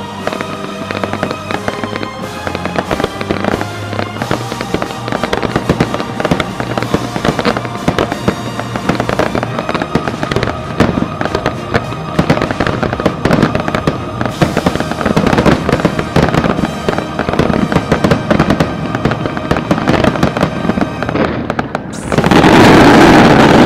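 Fireworks crackling and banging over a simulcast music track. About 22 seconds in the music stops and a much louder, dense rush of noise takes over.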